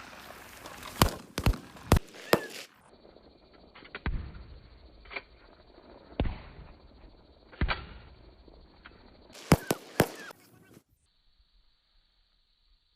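Gunfire on a firing range: separate sharp shots and very short bursts, each with a brief echo. There are loud reports in the first few seconds, fainter scattered shots in the middle, and a loud cluster of three near the end, followed by near silence for the last two seconds.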